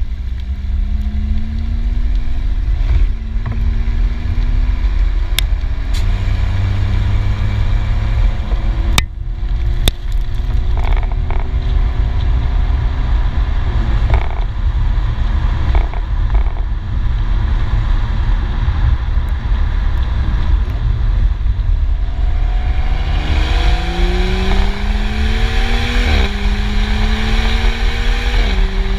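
BMW X4 M40i's turbocharged straight-six heard at the tailpipe while driving, its exhaust note rising through the gears and dropping at each upshift. Over the last several seconds it pulls harder and louder, with two quick upshifts near the end. Wind buffets the microphone throughout.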